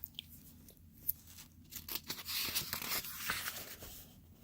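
Faint paper rustle of a storybook page being turned, with a few small clicks. The rustle is loudest in the middle stretch.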